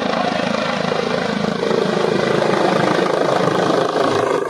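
Helicopter running: a loud, steady rotor and engine noise with a rapid flutter.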